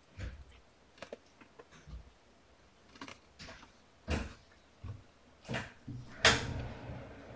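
Scattered soft knocks and rustles, with one louder bump about six seconds in that fades slowly.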